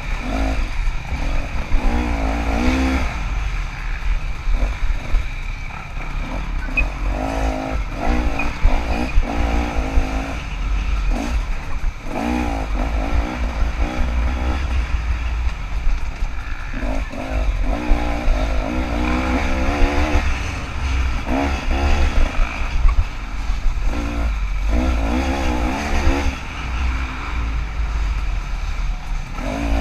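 KTM 300 two-stroke dirt bike engine, heard from onboard, revving up and down in repeated bursts as the throttle is opened and closed, over a steady low rumble.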